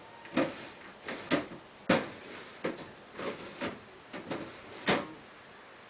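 Kitchen containers being rummaged through: about ten knocks and clunks in quick, irregular succession as jars and pots are moved and set down.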